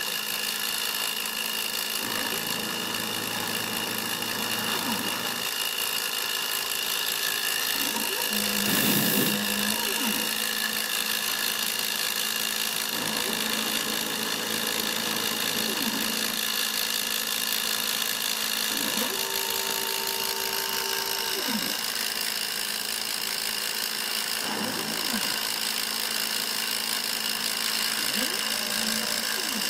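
Small CNC router engraving wood: the spindle motor runs with a steady high whine, which the maker finds too slow for the job. Under it the axis motors hum in short held notes and rising and falling glides every few seconds as the bit moves between letter strokes.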